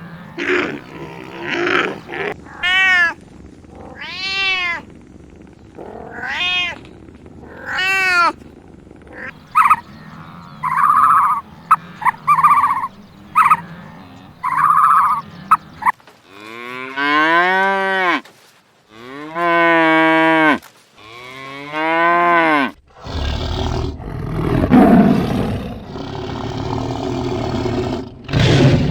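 A series of livestock calls, one after another. First come short high calls that rise and fall in pitch, then several long, lower calls that also rise and fall, like bleats or moos. Near the end there is a longer, rough, noisy call.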